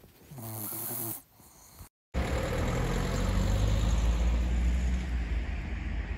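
A brief murmur of a person's voice, then a sudden cut about two seconds in to city street traffic noise with a loud, steady low rumble.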